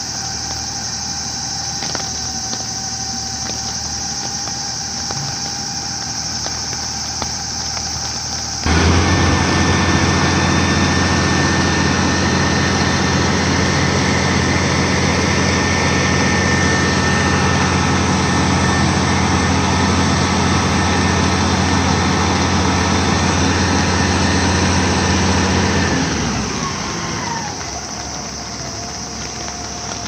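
Diesel engine of a Tadano CREVO 250 rough-terrain crane. It idles, then about nine seconds in jumps to much higher revs and runs loudly and steadily. Near the end the revs wind back down to idle, with a whine that falls in pitch as they drop.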